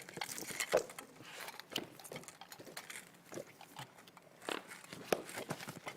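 Pens or markers writing on sketchbook paper: scattered short scratches, taps and small squeaks.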